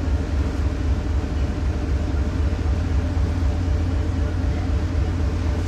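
A ferry's engine droning steadily with a deep hum, under a constant rushing noise.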